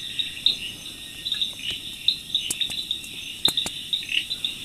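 Night insect chorus, crickets chirping steadily in a high, pulsing trill, with a few sharp clicks about two and a half and three and a half seconds in.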